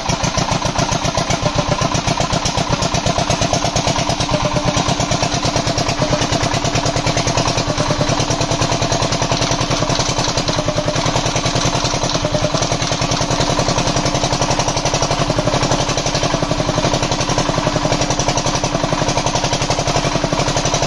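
Diesel generator engine running steadily, with a fast, even firing beat that holds throughout.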